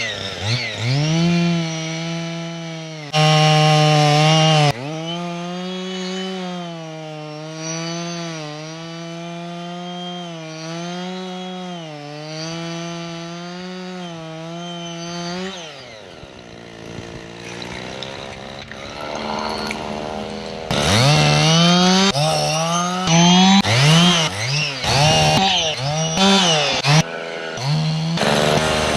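Husqvarna 55 two-stroke chainsaw cutting wood: the engine is held at high revs with its pitch dipping and recovering under load, drops to a low idle about halfway through, then is revved up and down in short bursts near the end.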